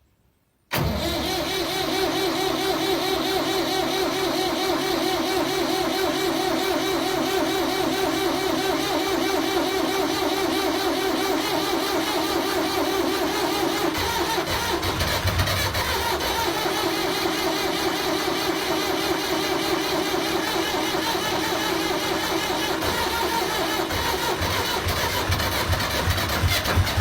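Truck engine cranking on its starter for a long stretch, turning over with a steady rapid pulse but struggling to catch: a hard start. It begins abruptly about a second in and shifts in pitch around halfway through.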